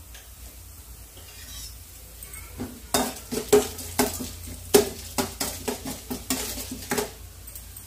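A spoon stirring a tempering of mustard seeds, dals and cumin frying in oil in a stainless steel kadai, scraping and clinking against the pan many times from about two and a half seconds in, over a faint sizzle.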